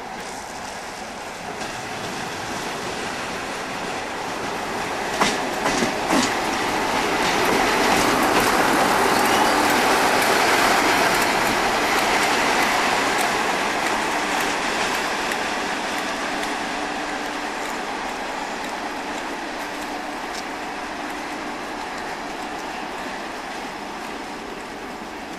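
Class 47 diesel locomotive passing, its engine and wheels on the rails growing louder as it nears and then fading away. A few sharp clicks come about five to six seconds in.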